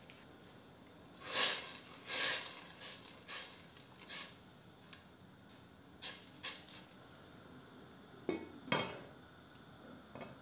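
Metal spoon stirring soup in a stainless steel pot, scraping and knocking against the pot in a series of separate strokes; near the end a glass pot lid is set down on the pot with two knocks.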